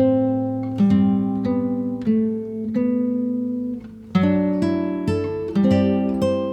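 Background music of strummed chords, a new chord struck about every half to two-thirds of a second and left ringing, with a short dip in loudness just before a strong strum about four seconds in.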